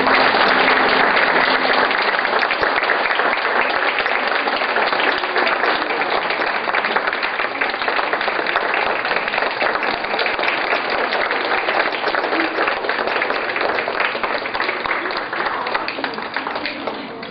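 An audience applauding, a dense patter of many hands clapping that dies away near the end.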